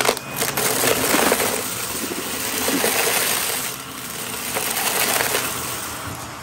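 Shark Navigator Lift-Away upright vacuum running over a shaggy rug while sucking up a dry mix of glitter, sequins, beads and grit, which crunches and rattles through the head and hose. The crunching swells about three times as the vacuum is pushed forward in strokes.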